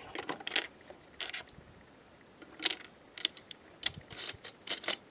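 Aguila 1¾-inch 12 gauge minishells being pressed by hand into the DP-12 shotgun's magazine tubes: a series of sharp clicks as shells snap past the magazine catch.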